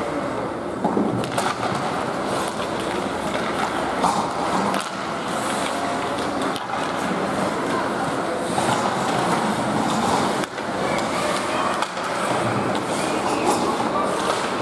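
Ice hockey play: skate blades scraping and carving the ice, with sharp clacks of sticks and puck and occasional knocks against the boards.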